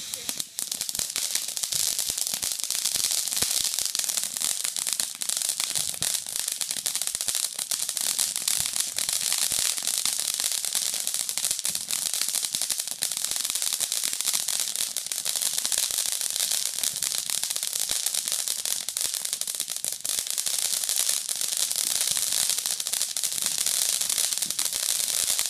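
Ground fountain firework spraying sparks, a steady loud hiss with dense fast crackling running through it.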